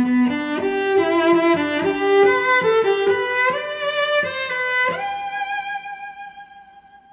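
Classical background music on bowed strings, led by a violin: a moving melody of changing notes that settles on one long held note about five seconds in and fades away.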